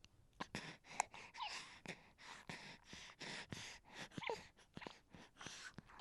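A baby whining and fussing: a string of short, breathy whimpers and gasps broken by a few brief squeaky cries.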